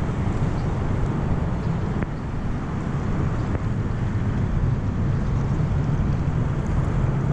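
Steady wind rumble on the microphone, with a faint low hum underneath.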